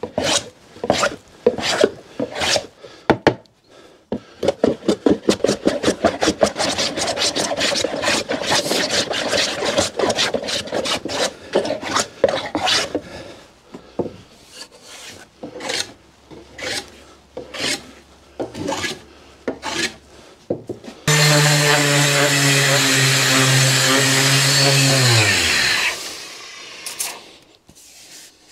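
Wooden hand plane taking shavings off an oak board in a long run of quick strokes. Near the end an electric power tool motor starts abruptly, runs steadily for about five seconds, then winds down with falling pitch.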